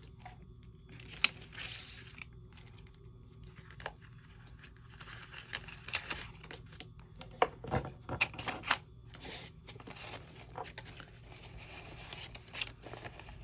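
Paper rustling and crinkling as cash and paper savings trackers are handled, with scattered sharp clicks and taps; one click about a second in is the loudest.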